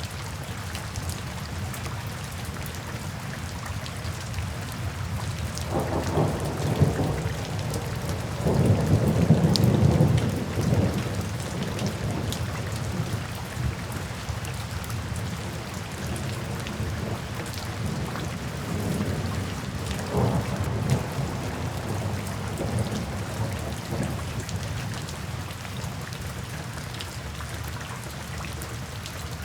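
Steady rain falling, with soft thunder rumbling: a long rumble swells about a fifth of the way in and peaks around a third of the way through, and a weaker rumble follows past the middle.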